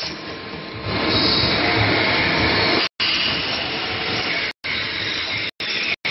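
Horizontal automatic metal-turning lathe running under cut, a steady mechanical whir and hiss that grows louder about a second in. The sound cuts out completely for a moment several times in the second half.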